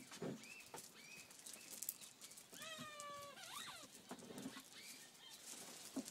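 Seven-week-old German Shepherd puppies whining and yipping at play: a few short high calls, then a longer held whine about three seconds in that breaks into a quick rising and falling yelp.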